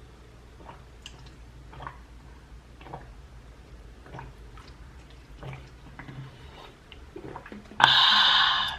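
Faint wet clicks and smacks from a person's mouth while eating, then near the end a loud, rasping burst from the throat lasting about a second, a reaction to the burn of the extra-spicy sauce.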